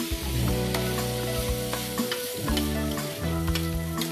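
Food sizzling in a frying pan as it is stirred, with light taps and scrapes of the utensil against the pan, over background music.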